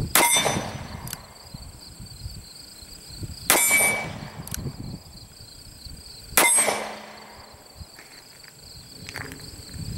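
Three shots from a Smith & Wesson Military & Police .38 Special revolver with a 5-inch barrel, about three seconds apart, each a sharp crack with a brief ringing tail.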